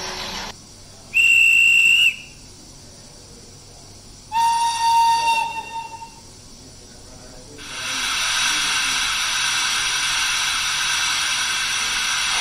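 Recorded steam sounds from the sound decoder of a Rivarossi H0 FS Gr741 steam locomotive model. A short, high whistle blast comes about a second in and a longer, deeper whistle about four seconds in, which wavers as it dies away. From about three quarters of the way through, a steady, loud hiss of steam sets in.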